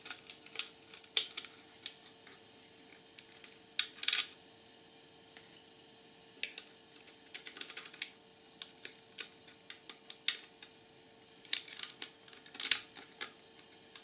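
Irregular light clicks and taps of a bracket being lined up and fitted onto a TV power supply circuit board by hand, pausing for about two seconds near the middle, over a faint steady hum.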